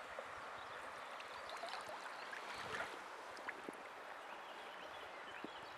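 River water flowing steadily over a shallow stony bed, with a few faint clicks in the middle.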